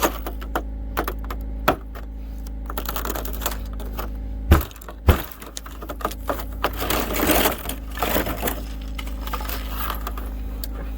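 Car engine idling steadily while it warms up on a cold morning, under a run of clicks and knocks, with two sharp thumps about four and a half and five seconds in and some rustling after them.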